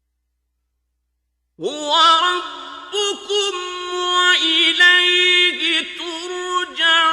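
Dead silence for about a second and a half, then a man's voice enters chanting Quranic recitation. He sings slow, melodic tajweed with long held notes that waver and turn in ornaments.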